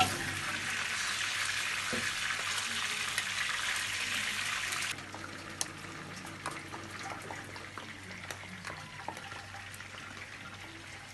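A steady hiss for about five seconds that cuts off suddenly. It is followed by quieter light clicks and scrapes of a wooden spoon stirring chopped okra in a steel saucepan.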